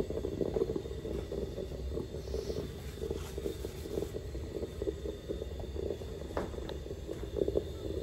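Alessi Pulcina stovetop moka pot on a gas burner, gurgling and bubbling steadily as the boiling water is forced up through the coffee grounds into the top chamber. The bubbling means the brew is still under way; it ends when all the water has passed through.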